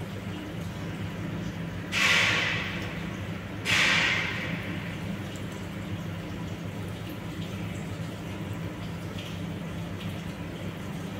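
Steady low hum over a watery background, broken by two sudden rushing gushes of water about two and four seconds in, each dying away over about a second.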